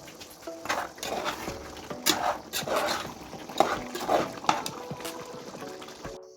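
A spoon stirring a pot of okro soup: a run of uneven scraping strokes with clinks against the pot, over soft background music.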